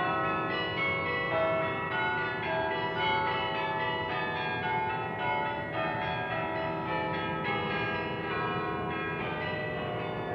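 Russian church bells pealing: many bells of different pitches struck in quick succession, their tones ringing on and overlapping.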